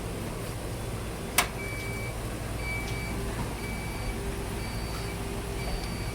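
Electrolux W5300H large-capacity washer running with a steady hum. A sharp click comes about a second in, then a high electronic beep sounds over and over, about once a second.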